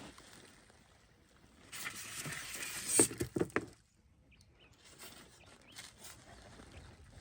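Rustling of packaging being handled, with a few sharp knocks of wooden parts about three seconds in, the first the loudest.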